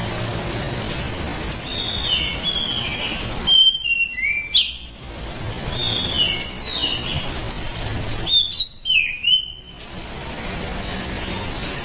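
Anis cendana thrush singing in two bouts of clear whistled phrases. Each bout is a softer run of notes followed by a louder phrase with sharp upward and downward slurs, heard over a steady hiss.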